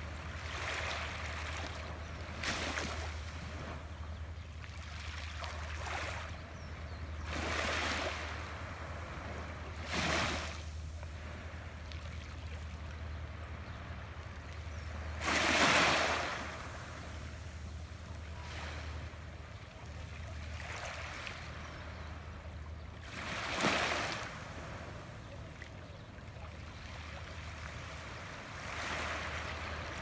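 Small sea waves lapping and washing onto the shore every few seconds, each one a soft rising and falling rush; the biggest comes about halfway through. A steady low rumble runs underneath.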